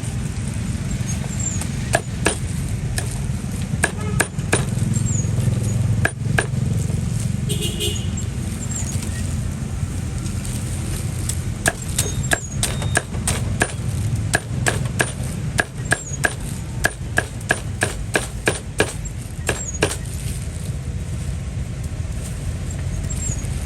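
A series of sharp knocks, coming about two a second through the middle stretch, over a steady low rumble of street traffic.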